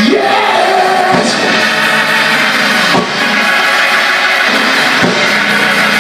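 Live church band music played loudly on a drum kit and other instruments, with a sharp drum hit about every two seconds.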